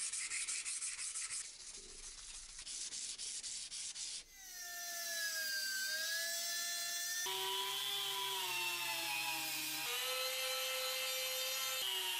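Sandpaper rubbed by hand on a steel cleaver blade in quick back-and-forth strokes. About four seconds in, a handheld rotary tool with a small sanding drum takes over, whining steadily as it sands the cleaver's steel tang, its pitch dipping and shifting a few times.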